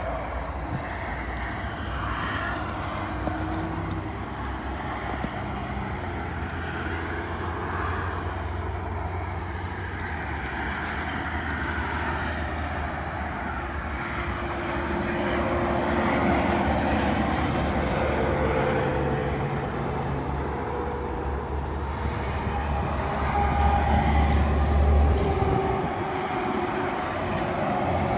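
A steady low engine-like drone with slowly wandering pitch, swelling louder a little before the end.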